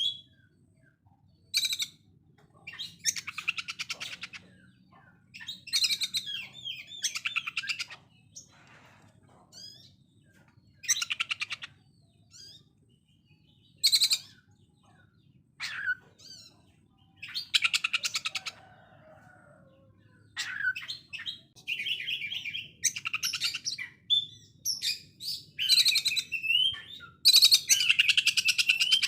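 Oriental magpie-robin (kacer) singing harsh 'konslet' song: repeated bursts of very fast, rattling notes like a sewing machine, each lasting a second or two, with short whistled notes between them. The longest and loudest burst comes near the end.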